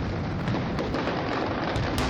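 Fireworks going off in a dense run: a continuous rumble of bursts overlaid with many small crackles.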